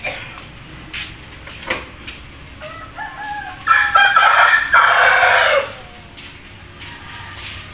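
A rooster crows once, a long call of about three seconds starting around three seconds in. Faint footsteps tap about once a second around it.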